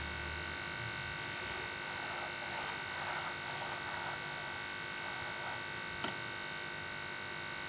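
A steady electrical hum, with faint scraping and bubbling as a steel spoon stirs thick semolina halwa in a pan, and a single sharp click about six seconds in.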